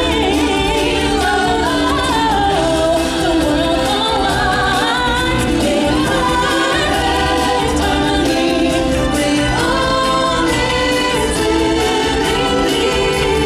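Stage-show musical number: a choir of voices singing together over backing music with a steady low beat.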